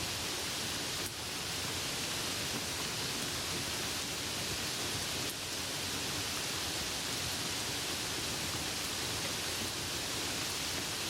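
Steady soft rain falling, an even hiss with a few faint drop ticks.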